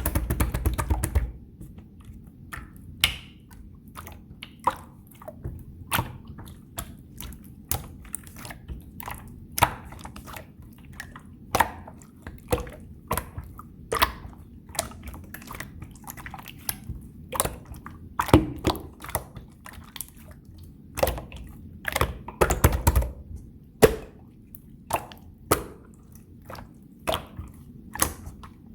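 Hands kneading and squeezing a blue-and-pink mixed slime: irregular sharp, sticky clicks and pops, one or two a second, broken by longer wet squishing stretches near the start and again twice about two-thirds of the way through.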